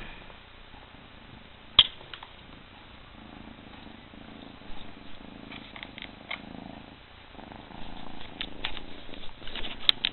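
Domestic cat purring steadily close to the microphone, with a sharp click about two seconds in and scattered clicks and rustling near the end.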